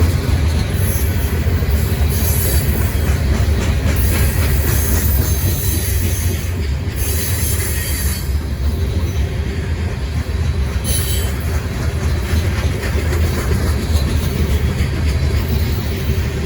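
Freight train cars rolling past with a steady low rumble of wheels on rail, with brief high-pitched wheel squeals every few seconds.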